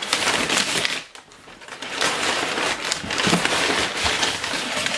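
Crumpled brown kraft packing paper crackling and rustling as it is pulled out of a cardboard box and handled, with a short lull about a second in.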